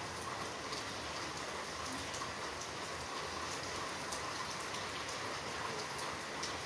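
Steady rain falling, with many small drops ticking on hard surfaces.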